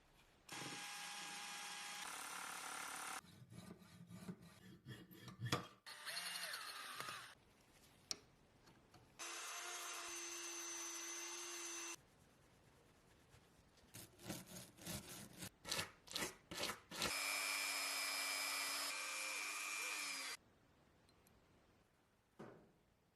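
A small power tool running in three steady bursts of about three seconds each, each with a steady whine and each cut off abruptly, used in cleaning rust from a metal lighter. Between the bursts come clusters of scraping and tapping from hand work.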